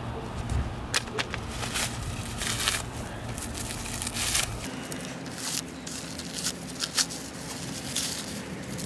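Packaging being torn and crinkled off new fender flares: irregular crackling, rustling and tearing with scattered sharp crinkles.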